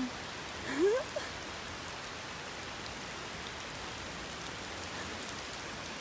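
Heavy rain falling steadily on roadside foliage and wet pavement, an even hiss. About a second in, a short rising call from a person's voice.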